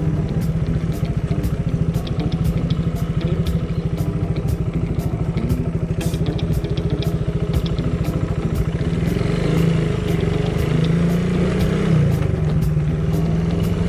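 Motorcycle engine running steadily under way on a rough off-road track, its pitch rising a little for a few seconds late on. Faint regular ticking about twice a second sits above it.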